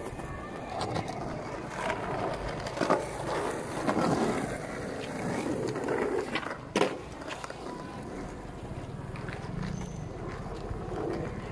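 Skateboard wheels rolling on concrete, with a couple of sharp clacks of a board striking the ground.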